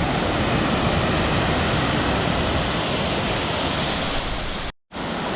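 Waterfall and river rapids rushing, a steady even noise of falling water. It drops out for a split second near the end at an edit, then resumes.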